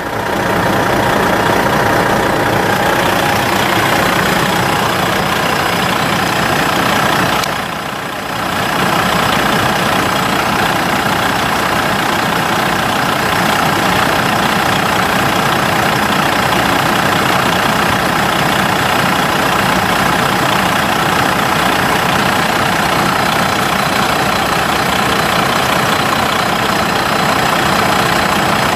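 Detroit Diesel 12.7-litre inline-six diesel in a Freightliner Century Class semi truck, idling steadily. The sound dips briefly about eight seconds in, then carries on.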